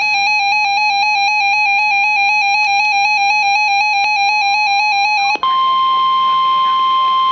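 NOAA Weather Radio SAME alert: a loud warbling electronic tone that steps rapidly back and forth in pitch, the digital SAME header. About five seconds in it breaks off abruptly and gives way to the steady 1050 Hz warning alarm tone, the signal that a warning message follows.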